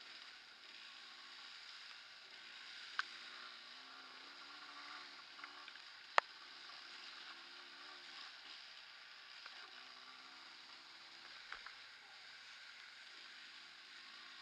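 Trail motorcycle engine running, faint and wavering in pitch with the throttle, under a steady hiss of wind and wet road spray. A few sharp clicks cut through, the loudest about six seconds in.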